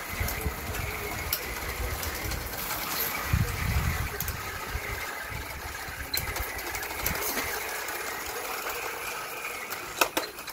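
Small electric motor whirring through its worm gear drive as a 3D-printed RC tank runs on plastic tracks over concrete, with scattered light clicks. A low rumble is loudest about four seconds in, and two sharp clicks come near the end.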